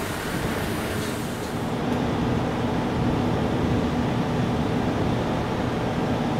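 A diesel-engined JR train running at low speed, a steady low rumble with a faint hum that grows a little louder about two seconds in.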